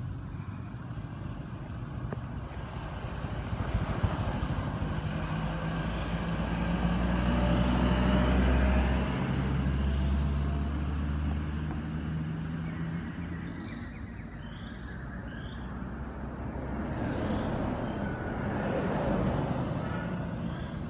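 Motor vehicles passing on a road: one engine grows louder, is loudest about eight seconds in and fades away, then a second vehicle passes near the end.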